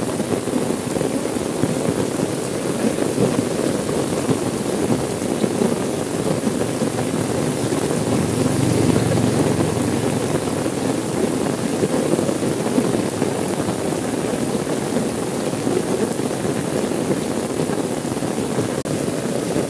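Steady heavy rain pattering on a car's windows and roof, heard from inside the cabin.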